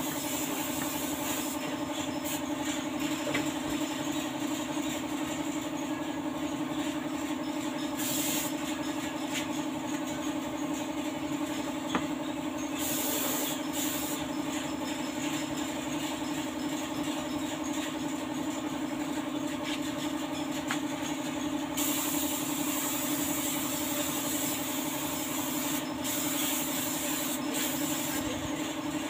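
Compressed-air paint spray gun hissing in several bursts as clear coat is sprayed onto a car's body panels, over a steady machine hum.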